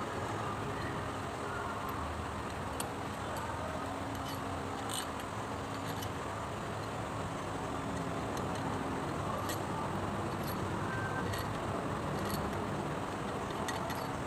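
A few short, light clicks at irregular moments over a steady background hum.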